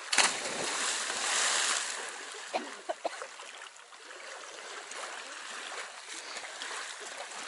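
A person diving headfirst from a wooden platform into a river: a loud splash just after the start, with water churning for about two seconds. Then softer sloshing and lapping as swimmers move in the water, with a few small knocks around three seconds in.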